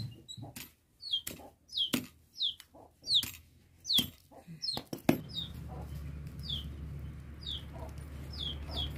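Hand cleaver chopping chicken offal on a wooden block: sharp knocks about every half-second to second, stopping about five seconds in. A chick peeps throughout with short high chirps that fall in pitch, and a steady low background noise follows the chopping.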